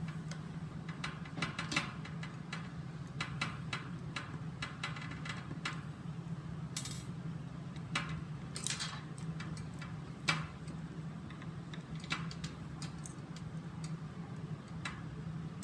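Irregular small clicks and ticks of screws being undone and plastic parts of a gel blaster's casing being handled, over a steady low hum.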